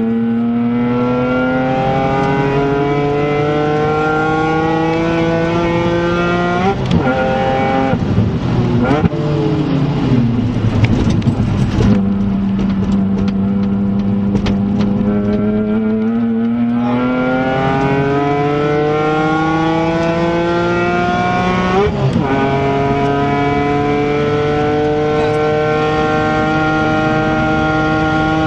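BMW Z4 M Coupé's S54B32 3.2-litre straight-six heard from inside the cabin at full throttle, its pitch rising through the gear with an upshift about seven seconds in. The revs then fall under braking with some short sharp noises, hold steady, and climb again, with another upshift about twenty-two seconds in and a rising pull to the end.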